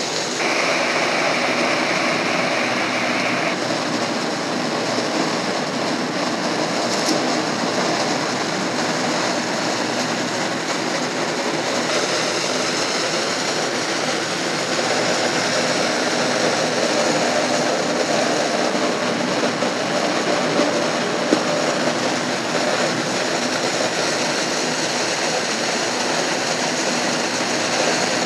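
A steady, even noise with no distinct events. A faint high tone sounds over it for the first three or four seconds.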